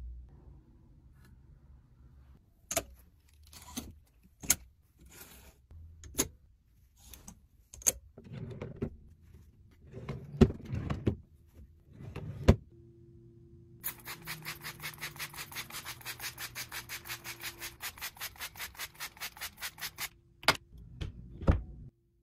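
Furniture being handled: rubbing and sharp knocks, as of a wooden dresser drawer sliding and shutting. This is followed by a fast, even ticking of about five to six a second for around six seconds, then two more knocks near the end.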